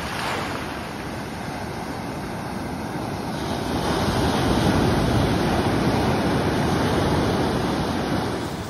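Ocean surf and wind rushing steadily, swelling louder about halfway through, as during a stormy day on the beach.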